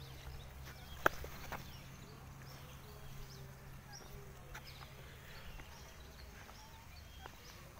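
Outdoor roadside ambience: a low steady rumble with short, faint high chirps scattered throughout, and a single sharp click about a second in.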